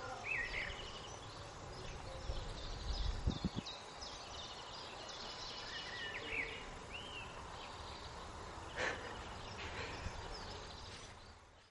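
Small birds chirping and singing over faint outdoor background noise, with a brief low thump about three seconds in.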